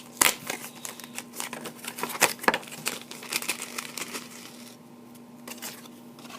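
Lure package crinkling and crackling as a jig is handled and taken out, in a quick run of sharp crackles that thins out after about four and a half seconds.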